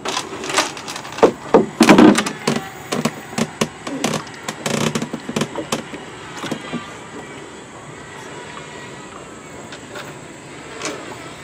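Irregular knocks and clatter in a small boat for the first half, some in quick runs, then a quieter stretch with a few more knocks near the end: the sound of handling a cast net and fish on board.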